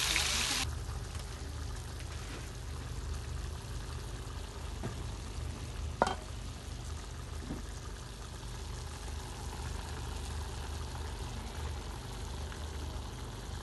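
Meat stew cooking in an aluminium pot over a wood and charcoal fire, faint against a low steady hum, with one sharp click about six seconds in. A loud hiss cuts off abruptly just under a second in.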